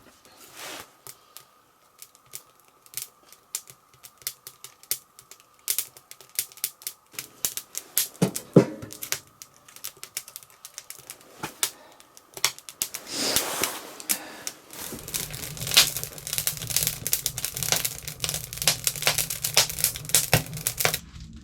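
Ferro rod scraped with its striker to light a wood stove: a long series of sharp scrapes and clicks, growing denser toward the end with a low steady hum underneath.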